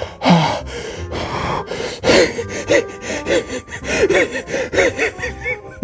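A man breathing hard and gasping through an open mouth from the burn of very spicy noodles, then, from about two seconds in, laughing in quick repeated bursts.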